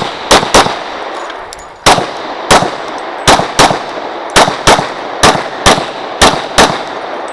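Glock 35 .40 S&W pistol firing rapid pairs of shots, about a dozen in all, the two shots of each pair about a third of a second apart with short pauses between pairs as the shooter moves between targets, each shot ringing out with a short echo.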